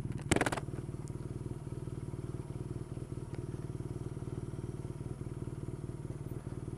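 Motorcycle engine running steadily at low speed, its even firing pulses heard from the rider's helmet camera, with one short, loud burst of noise about half a second in.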